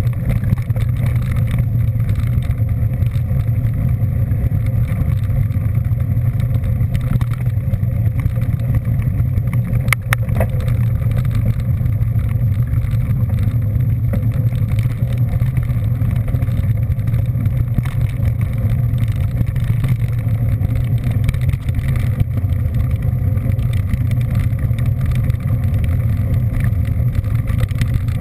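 Steady low rumble of a vehicle on the move, heard on board, even throughout with no revving, and a single brief click about ten seconds in.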